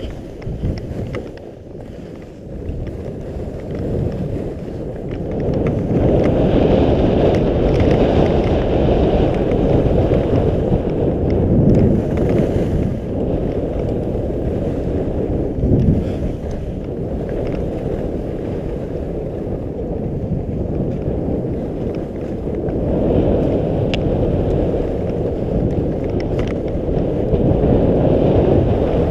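Wind buffeting a GoPro camera's microphone during a downhill ski run, a loud low rush that swells from about five seconds in, eases a little midway and rises again near the end, with a fainter hiss of skis sliding over packed snow.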